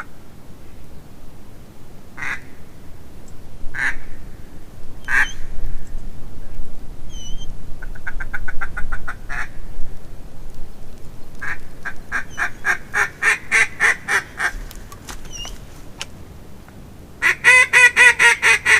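Mallard quacking: single quacks a second or two apart, then runs of quick quacks, the loudest run near the end.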